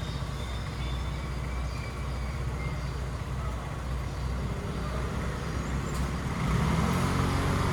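A steady low mechanical hum, like a running engine or motor, growing louder about six seconds in.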